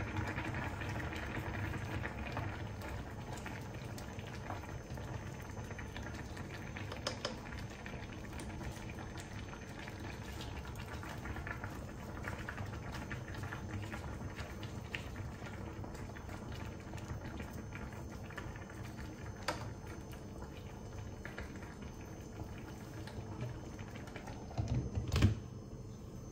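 Ramen broth boiling in an electric pot, a steady bubbling with scattered small clicks. Near the end there is a single loud clunk as the glass lid is set back on the pot.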